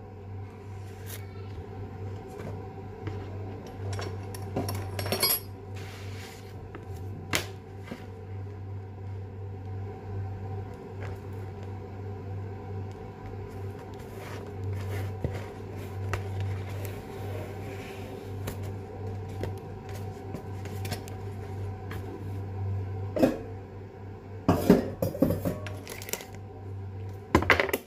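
Hands working at a kitchen counter while wrapping spring-roll wrappers around banana and jackfruit: scattered light clicks, rustles and clatters over a steady low hum, with a run of louder knocks and clatters near the end.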